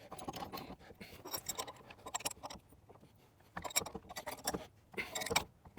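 Steel hitch parts clinking and rattling as a 2-inch steel hitch ball is fitted to the ball mount: scattered metal clicks, with busier clusters of clinks in the second half.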